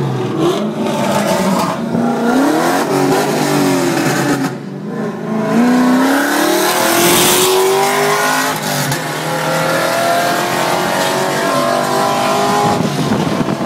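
Pontiac GTO's LS2 V8, breathing through headers and a custom exhaust, running loud at full throttle as the car accelerates hard. Its pitch climbs, drops briefly at a gear change about four and a half seconds in, then climbs again.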